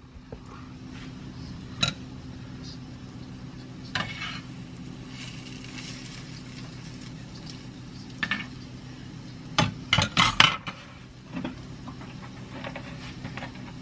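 A metal utensil clinking and knocking against a frying pan as cookies deep-fry, with a louder flurry of clanks about ten seconds in, over a steady low hum and faint sizzling of the frying oil.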